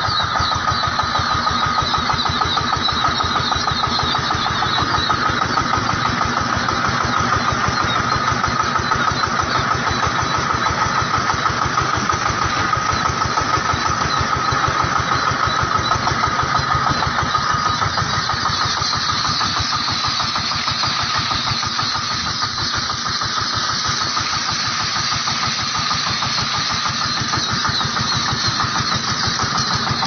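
Engine of a small tipper truck running steadily with a fast, even chugging.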